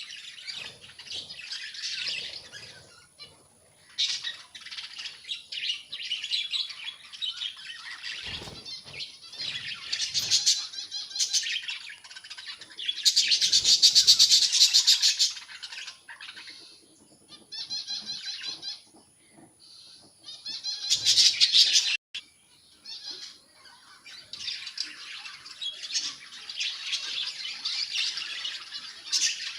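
A flock of budgerigars chattering and chirping, in clusters with short pauses; the loudest spell comes about halfway through, with another loud burst about two-thirds in.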